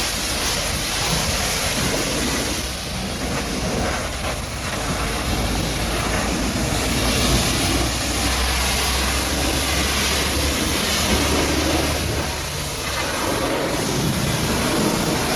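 High-pressure washer jet spraying water onto a muddy truck: a loud, dense hiss that swells and fades as the spray moves, with a low drone underneath for a few seconds mid-way.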